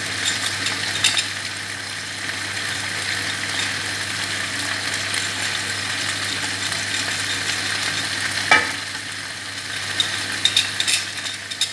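Shredded cabbage frying in a pan with a steady sizzle. A knife blade clicks and scrapes against a ceramic garlic plate a few times near the start, once past the middle, and in a quick run near the end.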